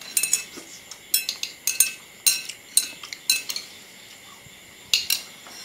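Metal chopsticks and spoons clinking against china plates and bowls while eating. A string of sharp, ringing clinks comes in small clusters, with the last two near the end.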